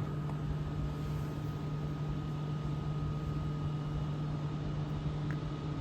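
Steady mechanical hum with a faint high tone held over it, unchanging throughout.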